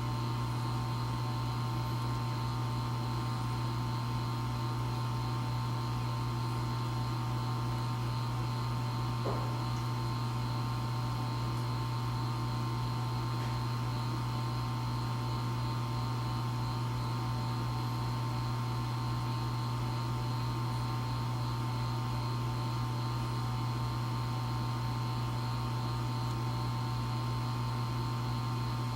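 EcoTech Vortech MP60 aquarium propeller pump running in constant mode, giving a steady hum with steady higher tones and a rapid low pulsing underneath. The owner treats this noise as a fault.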